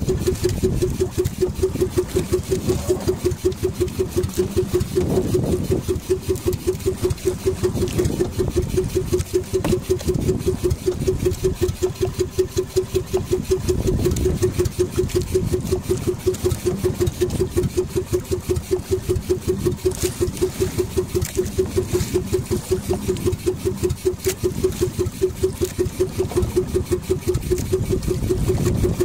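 The engine of a motorized outrigger boat (bangka) running steadily underway, with an even, rapid pulse. Wind and water noise sit beneath it.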